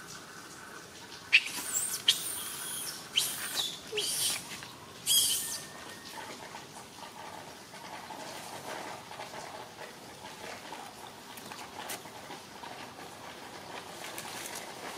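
Five short, shrill, high-pitched animal squeals in quick succession, each about half a second long, within the first six seconds; the first is the loudest. Afterwards only a faint background hum remains.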